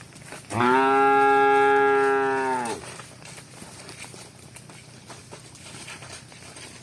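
A cow mooing once: one long call of about two seconds at a level pitch, starting about half a second in.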